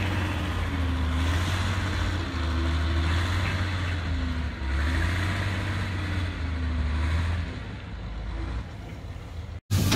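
An engine idling with a steady low hum and a slowly wavering tone above it, dropping away about seven and a half seconds in.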